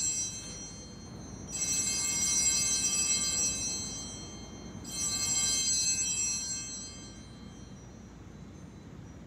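Altar bells ringing at the elevation of the chalice after the consecration: two rings, about a second and a half in and again about five seconds in, each a bright cluster of high tones that dies away over about two seconds.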